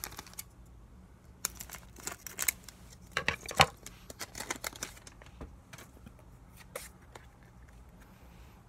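Pokémon trading cards being handled: irregular rustles and sharp card-stock clicks, busiest in the first half and thinning out toward the end.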